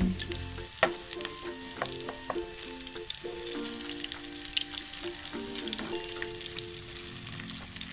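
Onion and garlic sizzling in hot oil in a nonstick pan, with the light taps and scrapes of a wooden spatula stirring them. Soft background music with sustained notes plays underneath.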